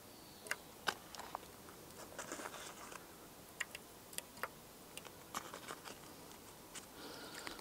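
Faint crinkling of a foil yeast wrapper and small scattered clicks as yeast is crumbled by hand into a jug of water.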